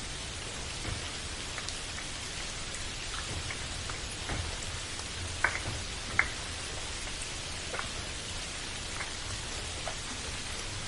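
Steady rain, with individual drops tapping on a surface scattered through it and two louder drop hits about halfway through.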